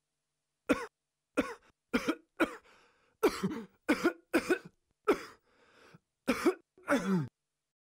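A cartoon character's coughing fit: about a dozen short coughs in quick clusters, the last one longer and falling in pitch, as a reaction to an irritant chemical.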